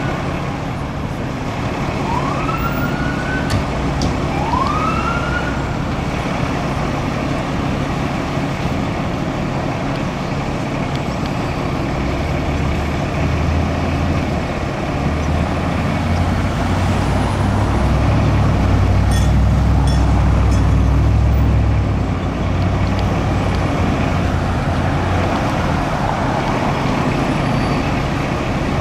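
Police car siren giving three short rising whoops in the first few seconds, then steady street traffic noise with a low engine rumble that swells in the middle and fades.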